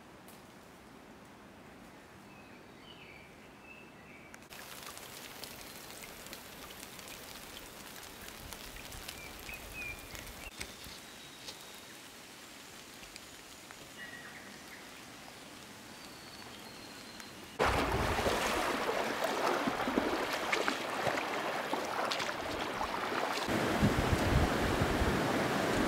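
Quiet bush ambience with a few faint bird chirps, then a soft steady hiss. About two-thirds of the way through it switches suddenly to the loud, steady rush of a shallow, stony river, with low rumbles near the end.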